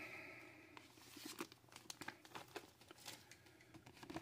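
Faint crinkling and rustling of a thin clear plastic bag as a model-kit decal sheet is slid out of it, heard as scattered small crackles and clicks.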